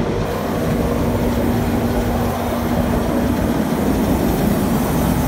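A large engine running steadily close by, with a low steady hum that fades out about three seconds in.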